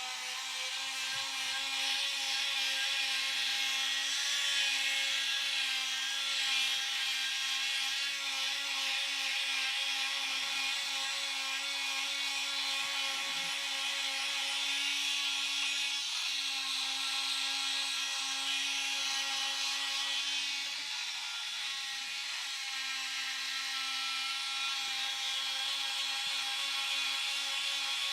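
Milwaukee M12 cordless oscillating multi-tool with a sanding pad, sanding a wooden board: a steady high-pitched motor whine with sandpaper hiss over the wood, easing off briefly about two-thirds of the way through.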